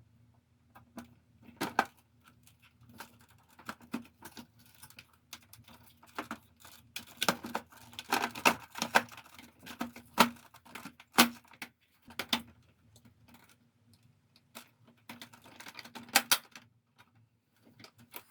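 Irregular clicks, taps and knocks of hard plastic air-conditioner parts being handled and fitted, busiest in the middle, over a faint steady hum.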